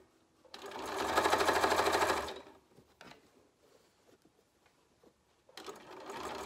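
Bernina Aurora 440 QE sewing machine stitching in short tacking runs: it speeds up, runs for nearly two seconds and stops, then after a pause with a few faint clicks it starts stitching again near the end.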